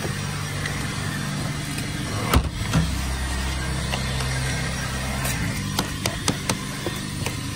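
A machine running with a steady low hum. There are two sharp knocks a little over two seconds in and a run of short clicks near the end.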